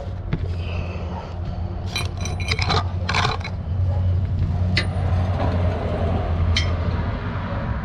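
A few sharp metal clinks and scrapes of hand tools at a pickup's oil drain plug, over a steady low rumble.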